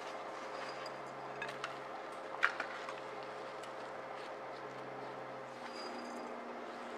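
Oat crumble topping sprinkled by hand into an aluminium baking pan: a few light clicks and taps, the sharpest about two and a half seconds in, over a steady low background hum.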